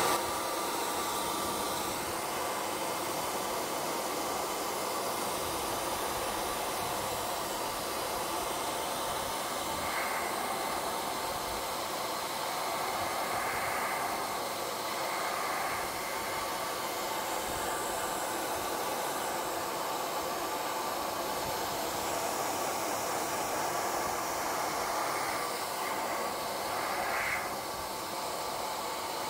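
Venezia 2400 AC professional hair dryer blowing steadily, a constant rush of air, its nozzle aimed at a plastic motorcycle engine cover to warm the double-sided tape on it.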